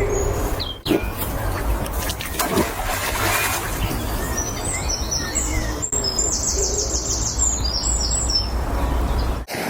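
Small birds singing and chirping, with a fast high trill about two-thirds of the way in, over a steady low rumble.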